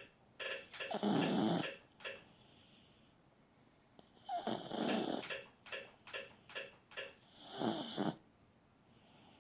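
Chihuahua snoring: three loud snoring breaths about three seconds apart, with a quick run of short snuffling clicks between the second and third.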